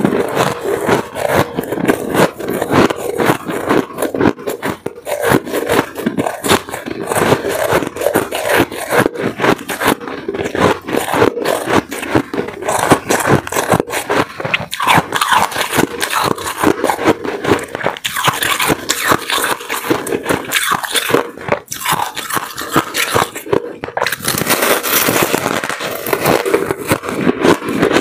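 Close-miked crunching and chewing of a block of powdery white ice, a dense, continuous run of crackling bites.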